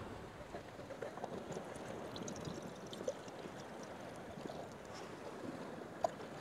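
Faint, steady watery sound of karak tea liquid as it is being made, with a couple of small clicks about three seconds in and near the end.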